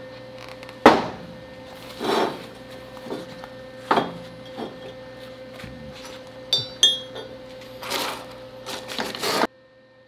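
Steel parts being handled and set down on a steel fixture table: irregular clanks and knocks, the loudest about a second in, with a couple of clinks that ring briefly a little past the middle. The sound cuts off suddenly shortly before the end.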